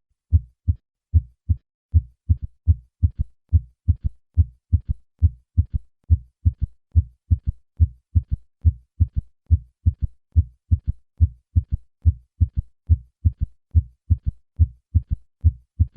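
Heart sounds at the cardiac apex in a gallop rhythm: each beat's first and second heart sounds followed by a third heart sound, an extra low-pitched thud in early diastole. It is a normal variant in children and adults under 40, and in patients over 40 it suggests heart failure.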